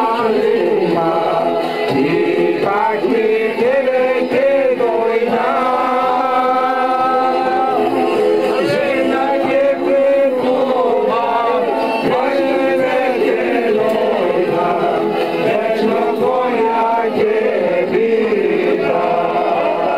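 A group of men singing together at the table, several voices at once, with long held notes.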